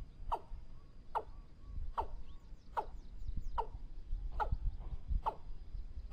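Watercock calling: a sharp, falling note repeated evenly a little more than once a second, over a low rumble.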